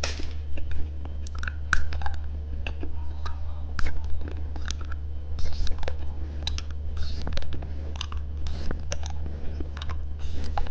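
Irregular small clicks and crackles of watermelon bubble gum being handled and eaten close to the microphone, over a steady low hum.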